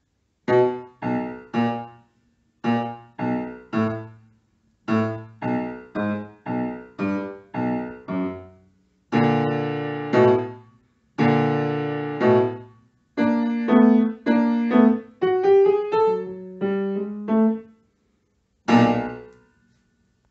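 Grand piano playing short phrases of separate notes and chords with brief silent gaps between them. A few chords are held longer midway, and the piece closes on a single chord near the end.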